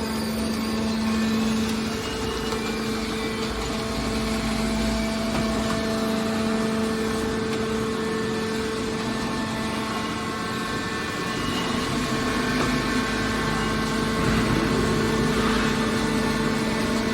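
Industrial machinery running steadily: a constant hum with a held low tone and its higher overtone over a wash of mechanical noise, getting slightly louder in the last few seconds.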